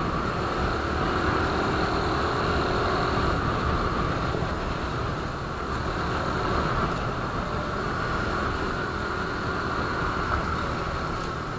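Suzuki Raider 150 Fi motorcycle riding along at about 55 km/h: a steady rush of wind and road noise over the running engine.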